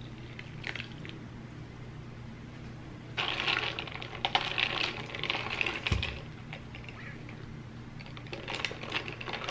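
Ice cubes clinking and rattling against a glass as an iced matcha latte is stirred with a straw, starting about three seconds in, with a thump near six seconds. More ice clinks near the end as the drink is sipped through the straw.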